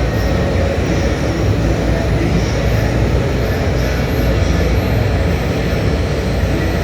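Belt-conveyor annealing furnace running steadily, a loud even machine rumble and hiss, heaviest in the low end, with the belt moving forward.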